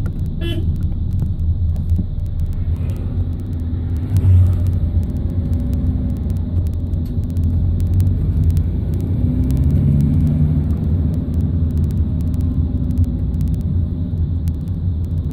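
Steady low rumble of a van's engine and road noise heard from inside the cab while driving slowly. The engine note shifts a little about ten seconds in.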